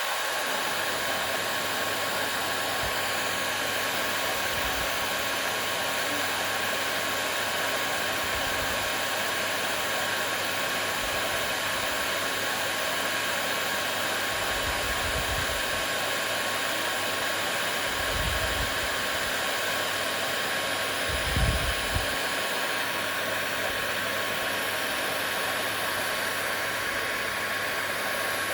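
Hair dryer running steadily: an even whooshing rush of air with a thin, steady whine. A few soft, low bumps come through in the middle.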